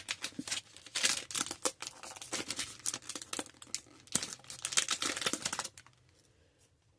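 Trading card pack wrapper crinkling and crackling as it is worked open by hand, in quick irregular rustles that stop about six seconds in.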